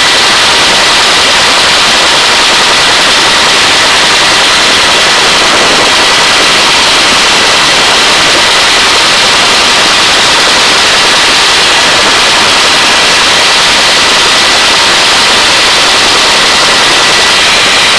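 Hovering helicopter heard from its open cabin door: loud, steady, hiss-like rotor and wind noise with a faint steady whine running through it.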